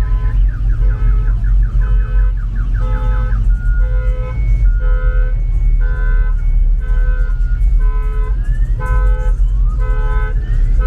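Repeating electronic beeps over a steady low rumble. The beeps change pattern: a fast warble at first, then evenly spaced pulses, then rising whoops near the end.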